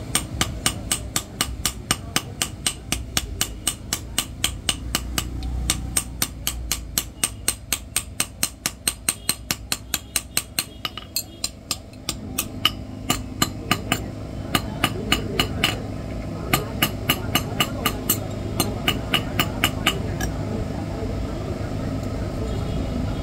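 Hand hammer striking an iron piece on a block anvil in quick, even blows, about four a second, each a sharp metallic clink. The blows come in three runs, with short breaks about halfway through and about two-thirds of the way in.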